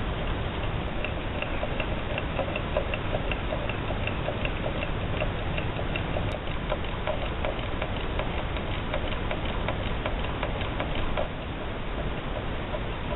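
A small tealight-heated hot-air (Stirling-type) flywheel engine running, its crank and linkage making a steady rhythmic ticking of about three clicks a second.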